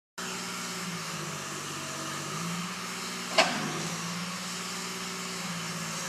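Dynahoe 190 backhoe's engine running steadily while the machine works, its pitch rising and falling a little. A single sharp knock comes about three and a half seconds in.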